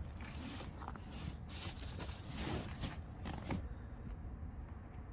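A folded foam mattress in a fabric cover being unfolded and pushed flat onto a plywood bed platform: a few seconds of rustling and sliding strokes, loudest around two and a half to three and a half seconds in.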